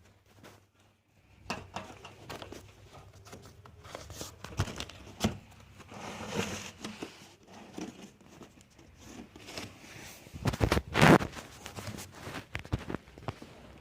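Cardboard carton and packing material being handled: irregular rustling, crinkling and light knocks, with a louder burst of knocks and rustle about eleven seconds in.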